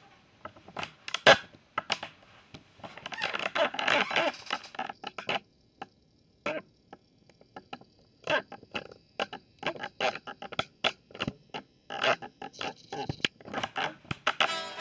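Handling noise on the recording device: a quick, uneven run of clicks and knocks, with a stretch of rustling about three to five seconds in.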